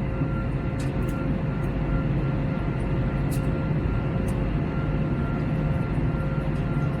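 Steady engine and airflow drone inside the cabin of an Airbus A321, with a faint steady hum and a few light ticks.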